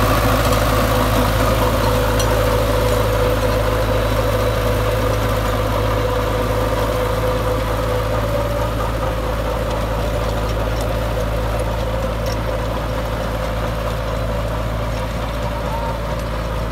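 Belarus 510 tractor's diesel engine running steadily under load as it drives a 54-blade rotavator through the soil, the sound slowly fading as the tractor moves away.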